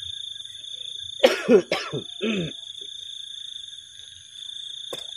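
A person coughing: three harsh coughs in quick succession about a second in, then a weaker, shorter one. A steady high insect drone runs underneath, and there is a single sharp click near the end.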